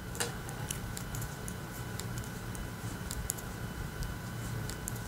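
Metal tips of 4.0 mm circular knitting needles clicking lightly and irregularly against each other as stitches are knitted along the row.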